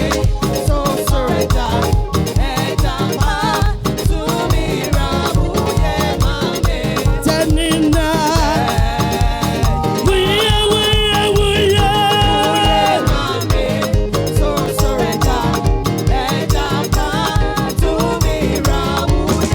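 Upbeat dance-style praise music with a steady driving beat and singing.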